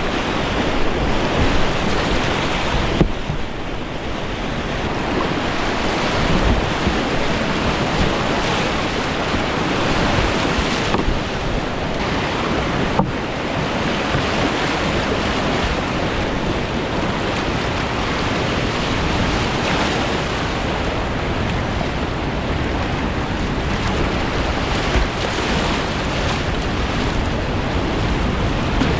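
Steady rushing roar of the whitewater rapids at Great Falls of the Potomac, with wind buffeting the microphone, and one sharp tap about halfway through.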